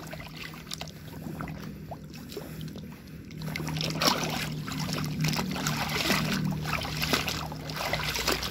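A hand sloshing and splashing through muddy water in a tub while rinsing mud off plastic toys, with short splashes. A steady low hum runs underneath and gets louder about three and a half seconds in.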